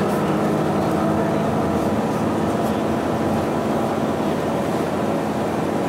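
Isuzu Erga city bus's diesel engine running at a steady speed, heard from inside the passenger cabin as an even drone over road and body noise.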